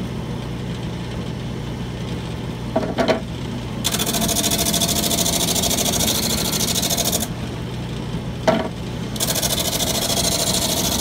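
Lathe running a homemade drum sander with a steady hum. Twice a piece of wood knocks against the spinning sandpaper drum and is then sanded, giving a loud hiss: once for about three seconds, then again from about nine seconds in.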